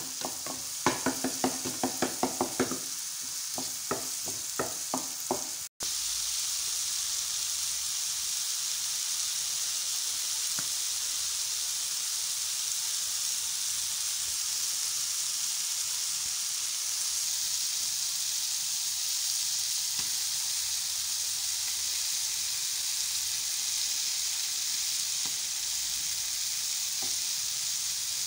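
Chopped tomatoes and meat frying in a pan. A wooden spoon scrapes and stirs in quick, regular strokes for the first few seconds. After a momentary dropout, the food sizzles steadily.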